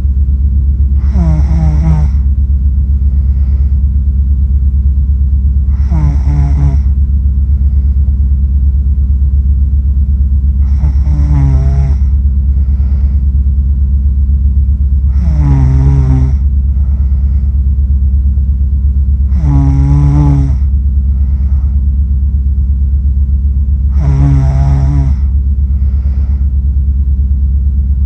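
A sleeping person snoring, one snore about every four to five seconds, each about a second long with a wavering, buzzing pitch; six snores, with a seventh starting at the very end. A loud steady low hum runs underneath.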